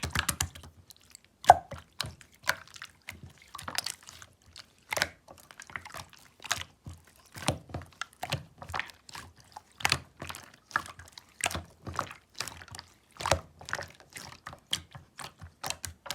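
Slime being squished and stretched by hand, a dense, irregular run of small clicks and pops, several a second.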